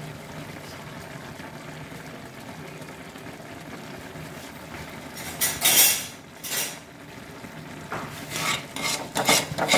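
A steel spoon scraping and stirring Maggi noodles in a non-stick frying pan, over a faint steady hiss of the gas burner and the simmering pan. It gives two loud scrapes a little past halfway, then quick repeated stirring strokes near the end.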